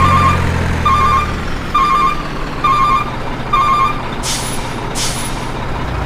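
Heavy truck engine running steadily with a reversing alarm beeping about once a second, five times, then two short hisses of air brakes near the end.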